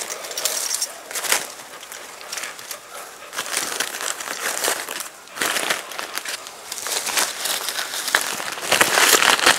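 Plastic packing wrap crinkling and rustling as it is handled and pulled off a crated motorcycle, in irregular crackles that grow loudest near the end.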